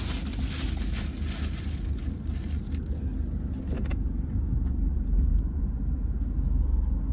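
Car heard from inside the cabin: a steady low rumble, with a hiss that fades about three seconds in and a few faint clicks later.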